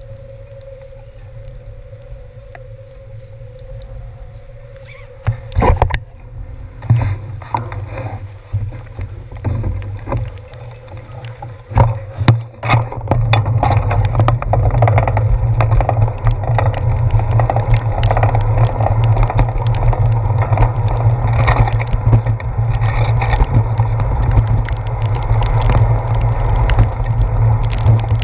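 Bicycle riding over wet pavement, heard from a handlebar-mounted camera: a steady low rumble of road vibration and wind, with a scatter of sharp knocks and rattles from bumps a few seconds in. About halfway through the rumble turns louder and denser and stays that way.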